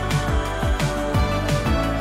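Background music with a steady drum beat and a repeating kick drum.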